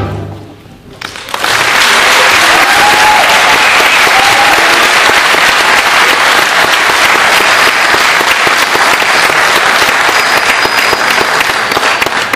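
A school wind band's final brass chord cuts off and dies away in the hall's echo, then about a second in the audience breaks into steady applause.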